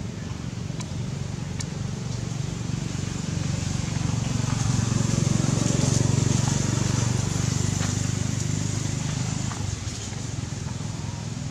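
A motor vehicle's engine hum that swells to its loudest about halfway through and then fades, as a vehicle passing by.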